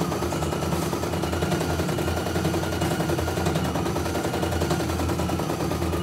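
CNY E900 computerized embroidery machine stitching a design: a rapid, steady clatter of the needle, with a motor whine that shifts a little in pitch as the hoop moves.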